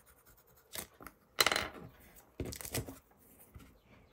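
A graphite pencil put down on the desk: a light click, then a sharp clatter about a second and a half in, and another smaller clatter a second later. It sounds as if the pencil were thrown down.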